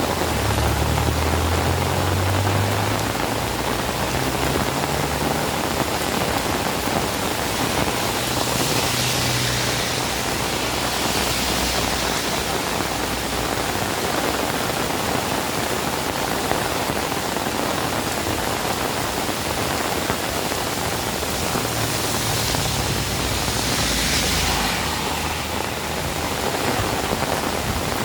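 Steady rain falling, a dense even hiss that swells a little twice, with a low rumble near the start and again near the end.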